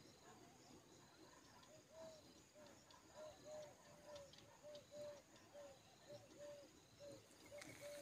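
Faint animal calls: short clipped notes at one steady pitch, repeated about two to three times a second, over a faint steady high insect drone.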